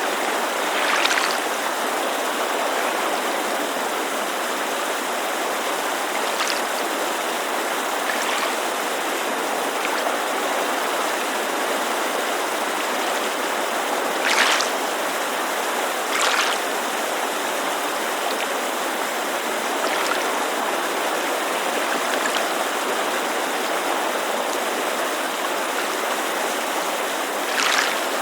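Steady rushing of a mountain creek mixed with water gently lapping against a lakeshore. Brief splashy surges rise out of it every few seconds, the clearest about 14 and 16 seconds in and just before the end.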